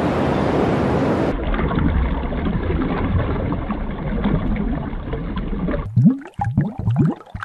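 Water sounds from nature footage: a steady rush of surf, cutting about a second in to a muffled underwater hiss, then near the end to bubbling gurgles made of short rising pops.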